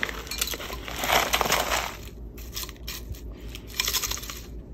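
Small dried scented wood pieces poured into a vase, clattering and rattling in two spills, the fuller one about a second in.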